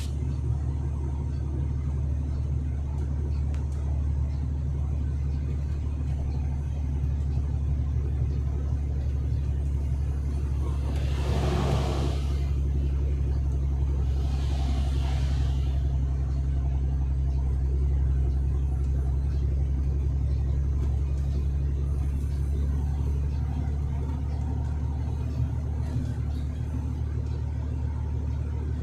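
Truck cab interior on the road: a steady low engine and road drone. A passing vehicle whooshes by a little before halfway through, and a fainter one follows soon after.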